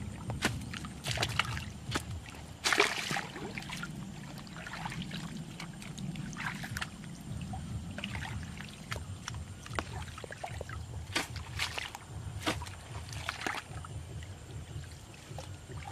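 Muddy ditch water splashing and sloshing as a hoe and hands are worked through it, in irregular strokes with one larger splash about three seconds in, over a steady low rumble.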